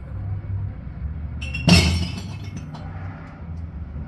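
A single sharp clatter of hard objects about halfway through, ringing briefly before fading, over a steady low hum.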